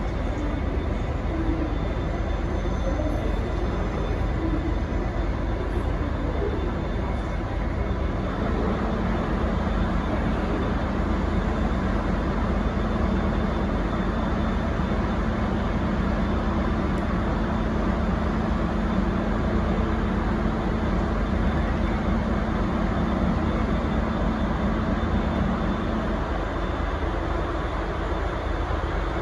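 Diesel engine of a V/Line N class diesel-electric locomotive running steadily. A low hum grows stronger about eight seconds in and drops back shortly before the end.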